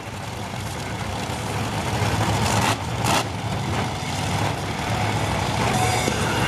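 Monster truck engine running hard in a tire-smoking burnout, the engine noise building gradually, with a short louder surge about three seconds in.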